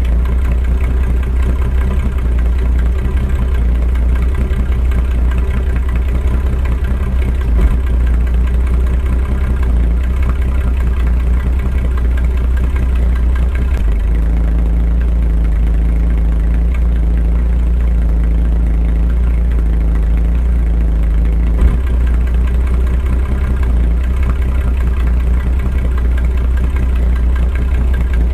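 Holden HQ Premier's engine idling steadily, with two brief knocks along the way.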